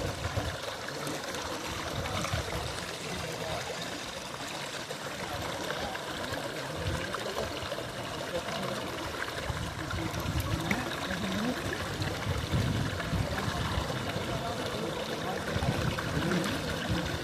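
River water flowing, a steady even noise.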